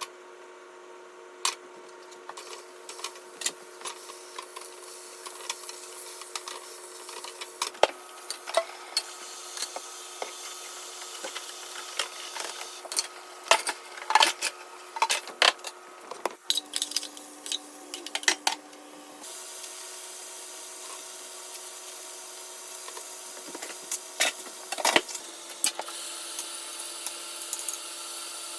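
Kitchen cooking sounds: scattered clicks, taps and scraping of utensils and dishes over a steady hum, with the background changing abruptly twice, about 16 and 19 seconds in.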